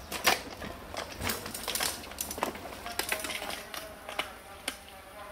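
Mountain bike riding over a rough forest dirt trail: irregular clicks, knocks and crunches from the chain, frame and tyres on dirt and twigs.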